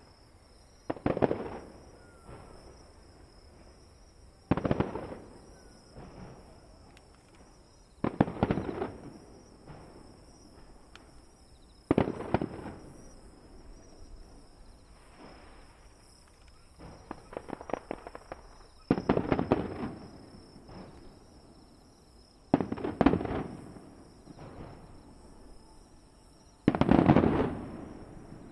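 Fireworks display: aerial shells bursting about eight times, roughly every three to four seconds. Each is a sharp bang that trails off in about a second of crackle and echo, with a scattered run of crackles about two-thirds of the way through. The last burst is the loudest.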